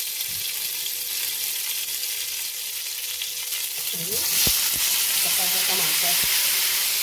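Cumin seeds, a bay leaf and red chillies sizzling in hot oil in a nonstick frying pan: the tempering (tadka) stage. About four seconds in, chopped tomatoes are tipped in, and the sizzle gets louder, with a few soft knocks as the pieces land.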